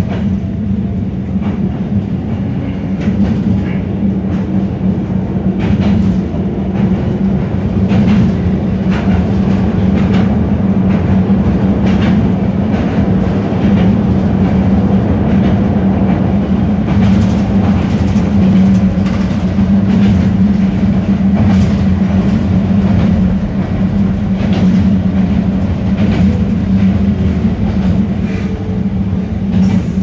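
Toyama Chiho Railway 10030 series electric train running, heard from inside the driver's cab. A steady rumble and hum runs throughout, with the wheels clacking over rail joints, most often in the middle stretch.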